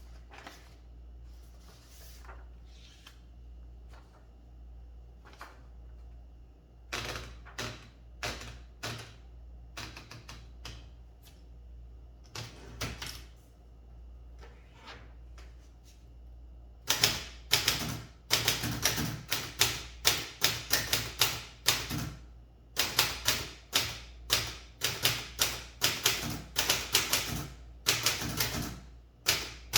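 Olympia Traveller de Luxe S manual portable typewriter: a few scattered clicks and key strikes at first, then, from a little over halfway through, fast typing with keys striking in quick runs broken by short pauses.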